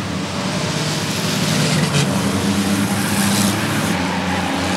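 A pack of six-cylinder stock cars racing around a short asphalt oval, many engines running together in a steady blend, with brief swells as cars pass about two and three seconds in.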